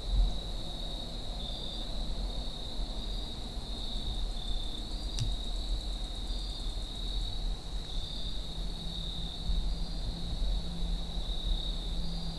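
A steady chorus of insects, crickets or katydids, trills continuously at a high pitch. Under it runs a low rumble of wind on the microphone, and there is one sharp click about five seconds in.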